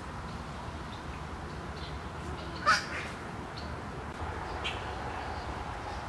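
A crow caws once, loudly, about halfway through, with a weaker second note just after. Faint high bird chirps sound in the background.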